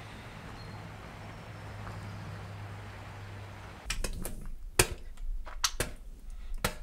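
Steady outdoor background with a low hum. About four seconds in it gives way to a handful of sharp drips or taps on a ceramic sink, the loudest near five seconds in.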